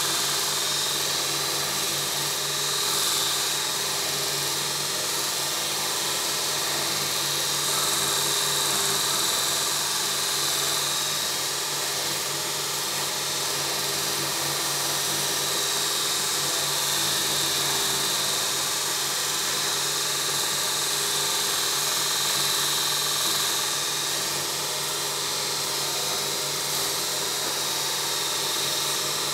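A 2x42 belt grinder running and grinding metal on its abrasive belt: a steady motor hum under a high, even hiss of the belt against the workpiece.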